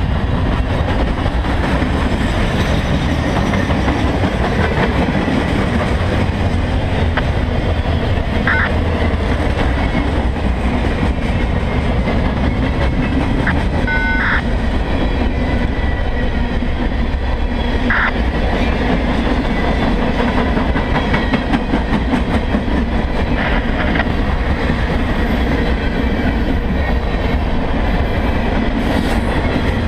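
Freight cars of a CSX train rolling past close by on a curve: a steady, loud rumble and rattle of steel wheels on the rails, with a few brief high squeals along the way.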